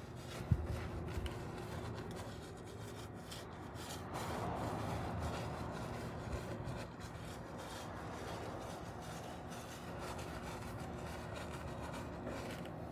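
Paint brush bristles scrubbing liquid rust converter into rusty steel, a steady scratchy rubbing. A single sharp tap about half a second in.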